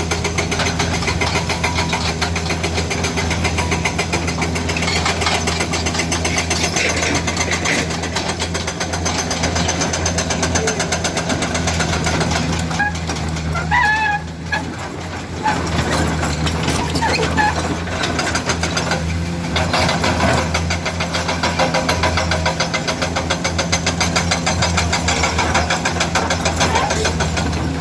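Komatsu PC200 hydraulic excavator's diesel engine running steadily under working load, a constant low hum with rapid firing pulses. The level dips briefly about fourteen seconds in, with a few short squeaks.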